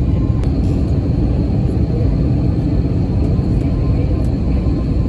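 Steady, loud rumble of an airliner's jet engines and rushing air, heard from inside the passenger cabin in flight.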